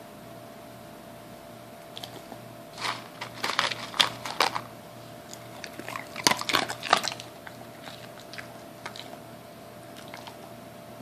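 A dog crunching and chewing a hard treat: bursts of sharp crunches from about two seconds in until past the middle, then a few fainter chews.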